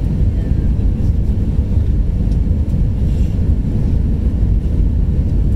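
Steady low rumble of engine and airflow noise inside the cabin of an Airbus A320 on approach with its flaps extended.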